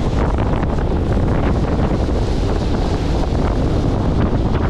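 Steady rush of wind buffeting the microphone on a small boat running at speed, with the boat's motor and the water rushing along the hull underneath.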